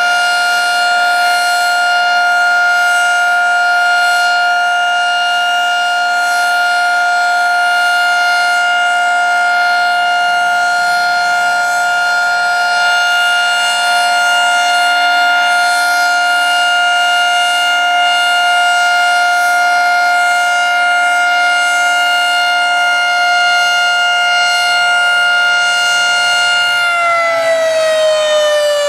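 Federal Signal 3T22A three-phase outdoor warning siren, its 10-port air intake blocked, sounding its alert as a steady tone of several pitches together; near the end the pitch starts falling as the siren winds down.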